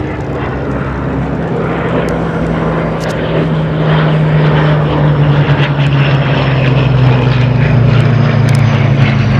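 Hawker Hurricane's Rolls-Royce Merlin V12 engine running as the fighter makes a low pass, growing steadily louder as it approaches, its pitch falling slightly.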